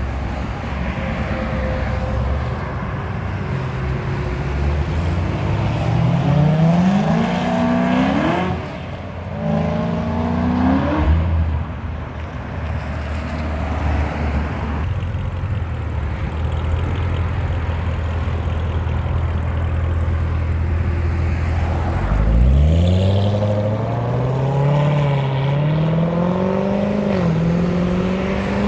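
Corvette ZR1's supercharged V8 pulling through the gears. The engine note climbs twice, dropping at each shift, holds steady for a stretch in the middle, then climbs again in one long pull near the end.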